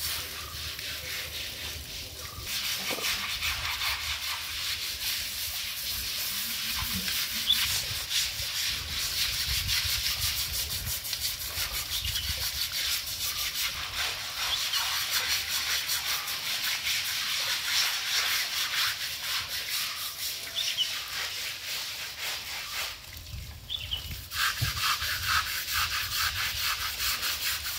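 A brush scrubbing the wet hide of an Asian elephant at its bath: rapid, steady rasping strokes, broken by a short pause about 23 seconds in.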